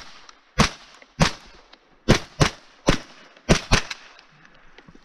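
Seven shots from a Ruger 10/22 .22 LR semi-automatic rifle, fired as an uneven string of single shots and quick pairs, stopping a little under four seconds in.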